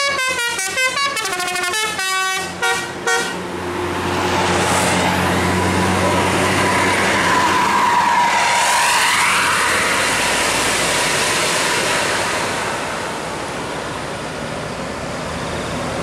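A bus's multi-tone telolet air horn plays a quick run of notes for the first three seconds. Then a Mercedes-Benz 1626 coach passes close by: its engine and tyres swell to the loudest point about eight seconds in, then fade away.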